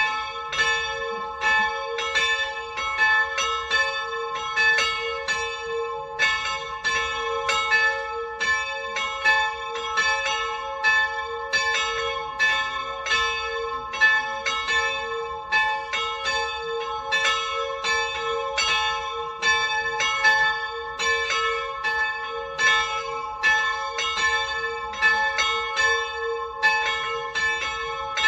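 Two small bronze church bells, tuned to a'' and c-sharp''', ringing together in full peal: a continuous, overlapping run of strikes, each leaving a sustained ringing tone.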